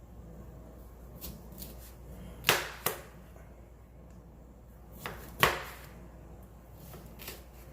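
Kitchen knife quartering a lemon, the blade knocking down onto a cutting board: a few sharp knocks with lighter taps between, the loudest about halfway through.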